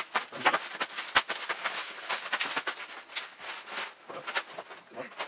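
Plastic packaging and bubble wrap crinkling and rustling as lighting gear is unpacked by hand, in quick irregular crackles, with a sharper knock about a second in.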